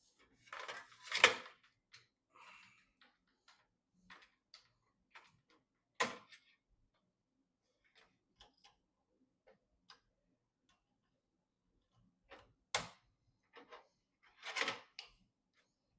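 Scattered sharp clicks and taps with brief rustles, from PC parts and tools being handled and fitted during assembly. The loudest clicks come about a second in, at about six seconds and just before thirteen seconds, with a longer rustle near the end.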